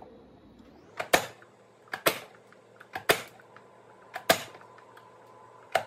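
Plastic hand-press vegetable chopper (Progressive onion chopper-dicer) pushed down repeatedly to dice purple onion through its blade grid: five sharp plastic clacks about a second apart, most of them doubled.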